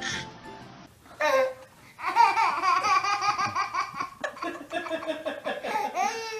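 A baby laughing: a short high-pitched burst about a second in, then a long run of repeated giggles.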